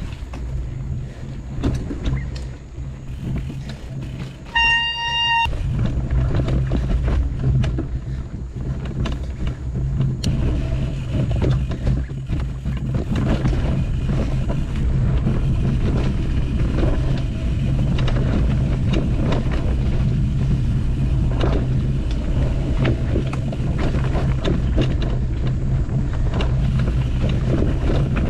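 Mountain bike rolling fast down a dirt forest trail: a steady low wind rumble on the camera's microphone, with rattling and clicks from the bike over the rough ground. A short, steady pitched tone sounds once, about five seconds in, for under a second.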